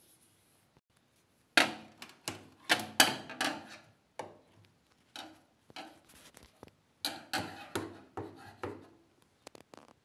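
Irregular knocks, clunks and scrapes from hands and tools handling the panels and parts of an old LG front-loading washing machine. They come loudest from about two to four seconds in and again around seven to eight seconds in.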